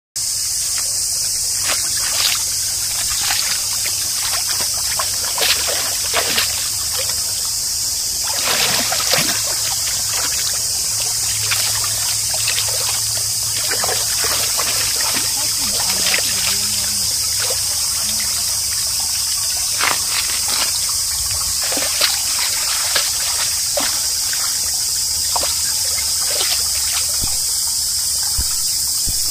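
A shallow stream trickling, with irregular splashes and lapping from an Airedale terrier wading and drinking in it. Over it runs a steady, high-pitched insect drone.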